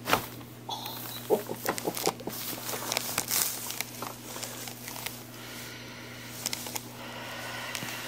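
Chiropractic neck adjustment: the cervical spine joints give a sharp crack right at the start, then a quick series of pops about a second in as the neck is turned, the sign of tight, gummed-up neck joints releasing.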